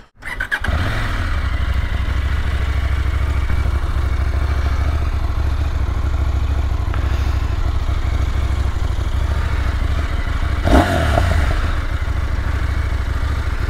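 KTM 990 Duke's V-twin engine running steadily at idle, with a brief louder burst about eleven seconds in.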